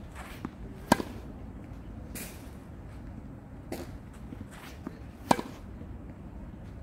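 Tennis racket striking a ball twice, about four and a half seconds apart, each a sharp crisp hit. Fainter knocks and scuffs come in between.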